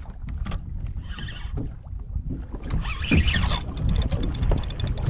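Low rumble of wind and water against a small boat's hull. About three and a half seconds in, a spinning fishing reel clicks rapidly and evenly for over a second.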